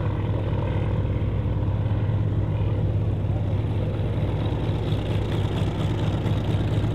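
Hawker Sea Fury's radial piston engine idling steadily as the fighter taxis, a deep even drone.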